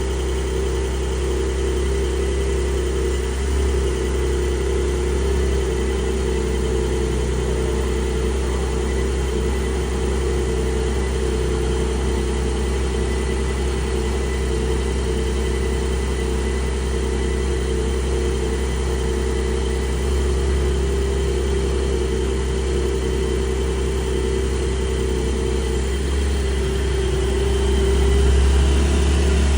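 Porsche sports car engine idling steadily, getting a little louder near the end.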